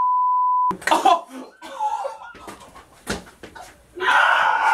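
A censor bleep, a steady 1 kHz tone, cuts off under a second in. Men's laughter follows, broken by short sharp sounds, with a louder outburst of voices near the end.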